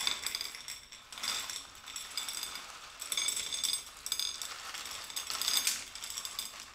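LECA clay pebbles rattling and clattering as they are shaken and tipped out of a small pot, in an irregular stream of clicks.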